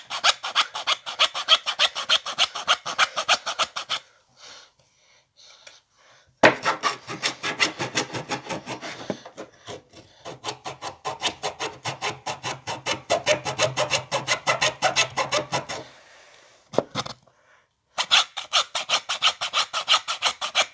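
Small hacksaw cutting through a piece of wood by hand in quick back-and-forth strokes, stopping briefly twice.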